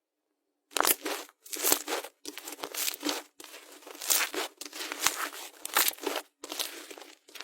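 Slime being squished and stretched by hand, with irregular bursts of wet crackling and sharp pops. These start about a second in, after a brief silence.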